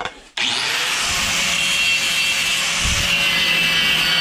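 A handheld power tool spins up about half a second in and runs steadily, grinding against the surface of a metal ice-maker part to check the metal underneath.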